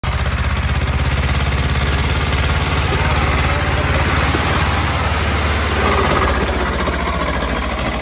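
Diesel tractor engine running as it tows a trolley past close by, a loud, fast, even low thudding.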